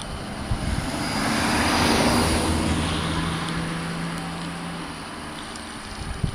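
A 115 series electric multiple-unit train running past, its rumble swelling to a peak about two seconds in and then slowly fading, with a steady low hum under it.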